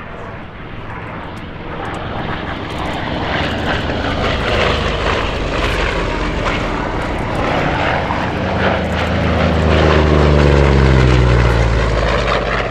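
Vought F4U Corsair's 18-cylinder radial engine droning as the plane flies past, growing louder to a peak about ten seconds in, where the engine note drops in pitch as it goes by.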